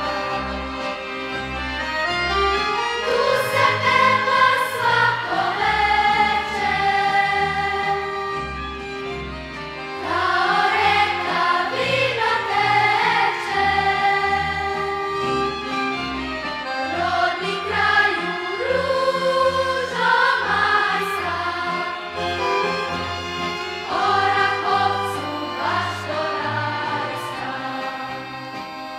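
Choir singing a slow Serbian folk song over low sustained bass notes.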